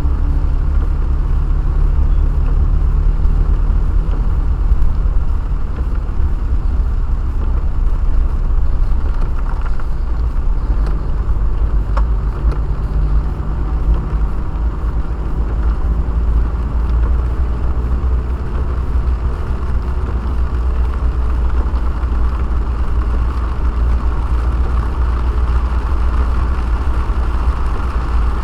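Steady low rumble of a car on the move, heard from inside the cabin: engine and tyre noise. A single short tick about halfway through.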